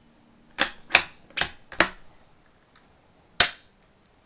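Ruger American .22 LR bolt-action rifle's action, safety and trigger worked by hand in a dry-fire demonstration of its light trigger. Four quick sharp metallic clicks come within about a second and a half, then one louder, sharper snap about three and a half seconds in.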